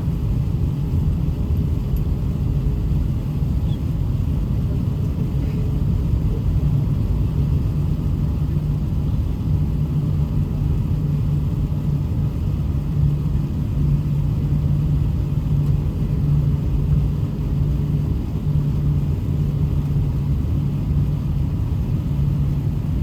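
Airbus A380-800's engines and airframe heard from inside the cabin: a steady low rumble with a constant low hum running through it.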